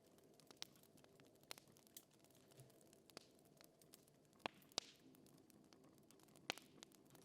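Faint fire crackling: a low steady background with a handful of sharp, irregularly spaced pops.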